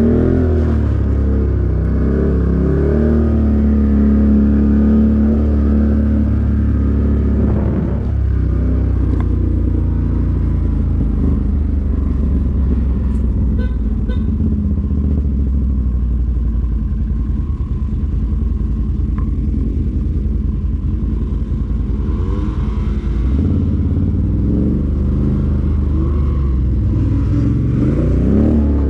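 ATV engine running under way, revving up and down near the start and again near the end, steadier in between.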